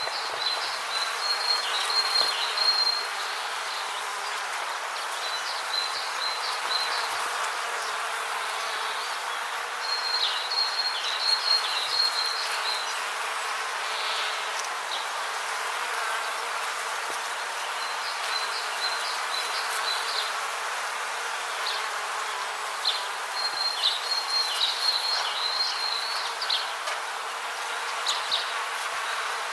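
Rainforest ambience: a steady hiss with repeated bouts of a high, trilling animal call, each bout lasting one to three seconds.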